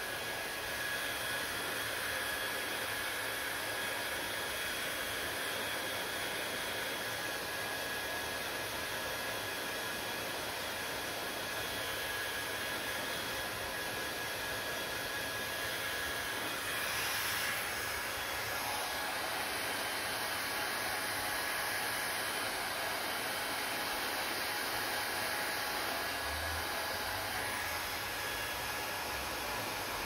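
Panasonic handheld hair dryer blowing steadily: an even rush of air with a faint, steady high whine from its motor, swelling briefly about halfway through.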